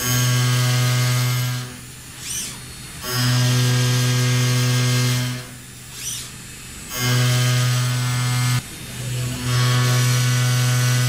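CNC mill-turn machine's milling cutter cutting a metal crankshaft: a loud, steady tone with many overtones, coming in four passes of about two seconds each. Between the passes are short quieter gaps with a brief rising whine.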